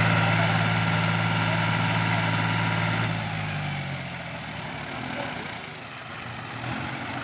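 John Deere 5105 tractor's diesel engine running at a steady idle, its hum quietening about halfway through.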